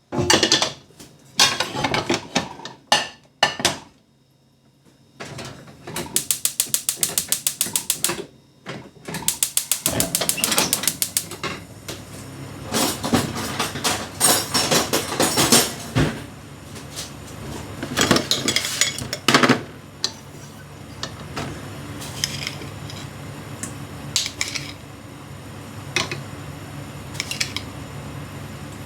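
Kitchen work sounds: utensils and cookware knocking and clattering, with two runs of rapid, even clicking in the first half. Later a steady low hum sets in, with an occasional click.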